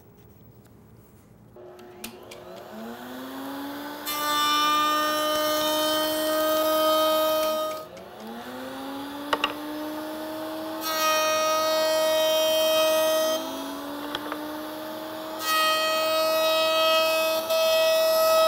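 Table-mounted router winding up to speed with a rising whine three times. Each time, a board is fed along the fence through the spinning bit, and the cut adds a loud hiss over the motor's steady whine for a few seconds. These are successive passes that each cut a deeper profile.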